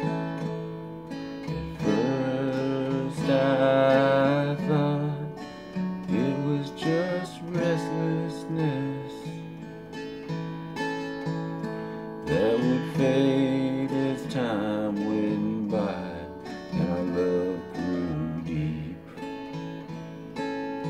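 Acoustic guitar strummed steadily, with a harmonica in a neck rack playing two louder melodic passages over it, about two seconds in and again about twelve seconds in.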